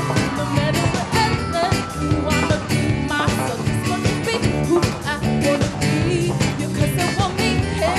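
Live band playing a rock song, with a woman singing lead over guitars and drums.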